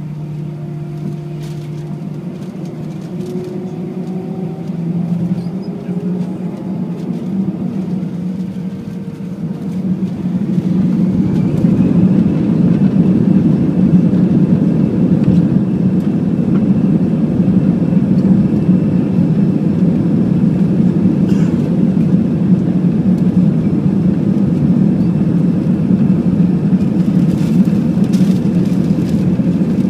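Airbus A320's turbofan engines heard from inside the cabin, in a rising whine as they spool up. About ten seconds in they reach takeoff thrust and settle into a loud, steady roar with a high whine over it for the takeoff roll.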